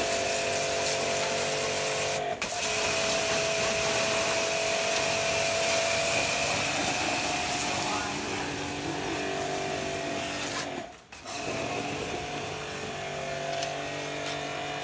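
High-pressure washer running, its pump motor giving a steady hum under the hiss of the water jet spraying the steel truck chassis frame. The sound drops out briefly about two seconds in and again, for about half a second, around eleven seconds in.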